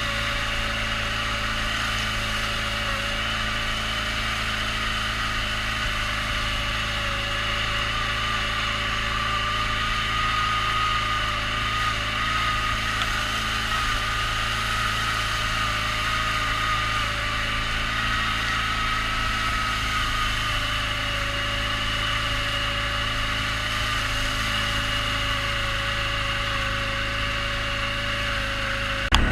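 Off-road vehicle engine running at a steady speed with a constant whine, holding even throughout with no revving.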